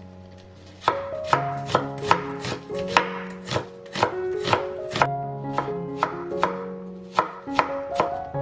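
Chef's knife chopping an onion on a wooden cutting board: quick, slightly irregular knocks of the blade on the board, about two to three a second, starting about a second in.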